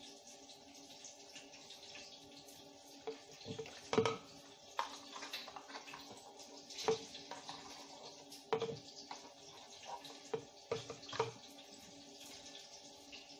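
Ingredients being opened and poured into a plastic blender cup: scattered clicks and taps of packets and small bottles being handled, with liquid being poured in.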